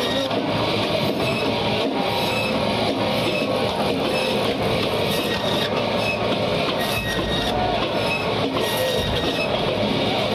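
Band saw running steadily while red snapper is pushed through the blade and cut into steaks, with music playing over it.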